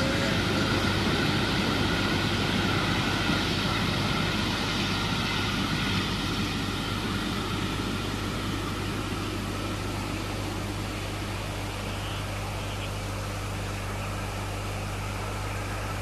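A steam-hauled passenger train, with a diesel locomotive behind the steam engine, running away into the distance, its sound fading slowly. A steady low hum lies underneath throughout.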